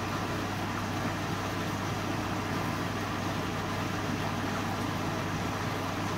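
Steady background hum and hiss, even and unchanging, with a constant low drone.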